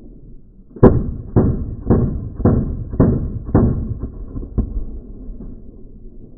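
Gunshots at a shooting range: about seven rounds fired one at a time at a steady pace of roughly two a second, each followed by a short echo, the last after a slightly longer gap.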